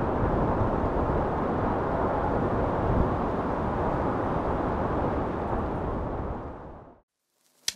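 A steady low rumbling noise, fading out about six to seven seconds in.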